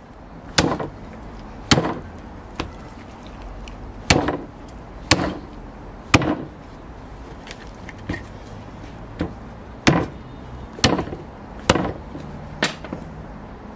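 Hatchet chopping lamb pieces on the bone against a wooden board: about a dozen heavy, sharp strikes, roughly one a second and unevenly spaced, some lighter than others.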